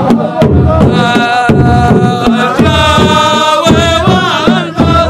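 Arabic folk music: a sung melody over drum beats.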